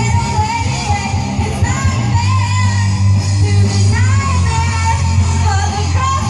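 Live rock band playing, with bass and guitar and a sung or lead melody over a steady bass line.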